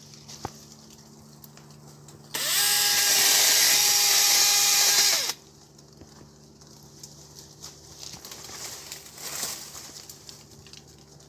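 A small handheld electric chainsaw spins up, runs for about three seconds cutting a plum branch, then winds down. Its motor whine rises as it starts and falls as it stops.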